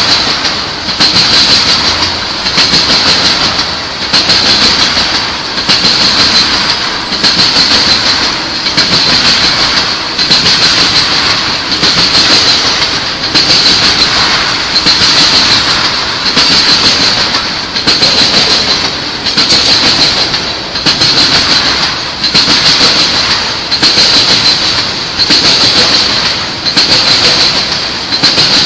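Train cars rolling past, their wheels clacking over rail joints in an even beat of about three every four seconds, with a loud steady hiss of rolling wheels.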